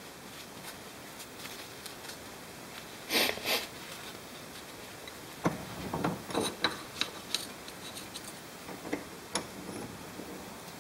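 Handling sounds at a bench vise. A short rustle of paper towels comes about three seconds in, then a run of light clicks and knocks as a G10 sheet is set between the towel-padded steel jaws.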